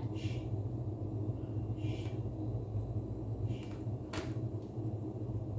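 Faint scraping and a click from a cable stripper and an Ethernet cable as the cut jacket is worked off, over a steady low hum.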